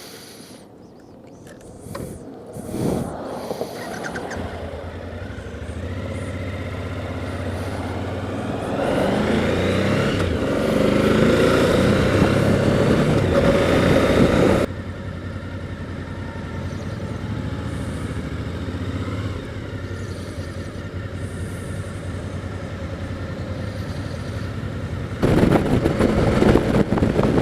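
Suzuki V-Strom DL1000's V-twin engine and wind noise while riding, the engine pitch rising as the bike accelerates. The sound drops suddenly about halfway through and jumps louder again near the end.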